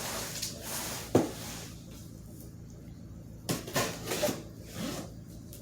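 Cardboard box and packaging being handled: rustling and rubbing, with a sharp knock about a second in and a few lighter knocks later.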